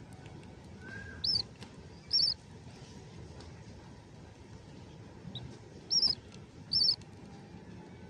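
Small pet parrots chirping: four short, high chirps in two pairs, the pairs about four seconds apart, over a faint steady hiss.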